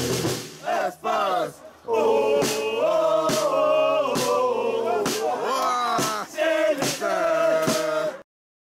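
Football supporters singing a chant together to a steady drum beat, with held sung notes. The chant cuts off suddenly near the end.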